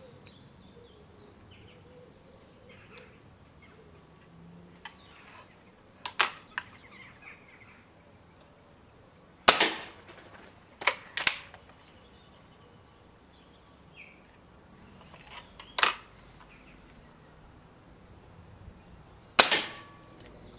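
BSA Super Meteor Mk 4 break-barrel spring-piston air rifle fired twice, about ten seconds apart, each shot a sharp crack. Between the shots come lighter clicks and clunks of the barrel being broken open to cock the spring and snapped shut again.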